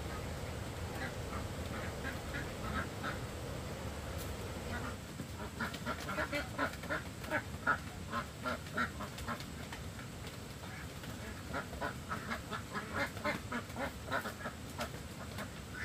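Ducks quacking: a few scattered quacks at first, then a dense, rapid run of overlapping quacks from about five seconds in.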